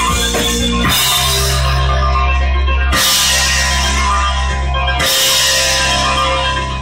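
Rock music with drums and guitar, played from a vinyl record on the turntable. A sustained bass note changes about every two seconds.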